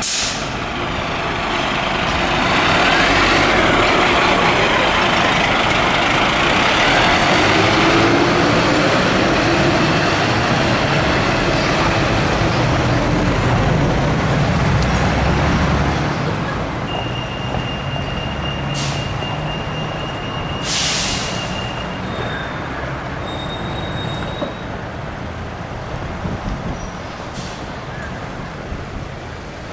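Scania fire engine's diesel engine and tyres as it drives close past and on, loudest over the first half. A little past halfway come two short, sharp hisses of its air brakes.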